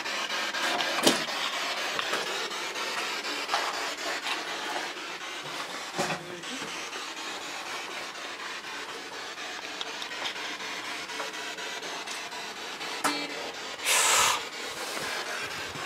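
Steady electronic static hiss with many faint rapid clicks, the sound of a spirit-box sweep answering a spoken question. About fourteen seconds in, a brief louder burst stands out, which the investigator takes for the name "Steeve".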